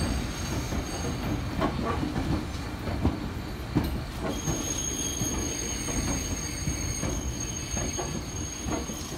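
JR Kyushu 787-series electric train (36ぷらす3) rolling past, its wheels rumbling and clicking irregularly over rail joints and points. A thin, steady high-pitched wheel squeal joins about four seconds in and holds until near the end.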